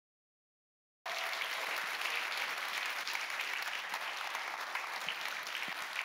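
Audience applauding, cutting in suddenly about a second in and going on steadily.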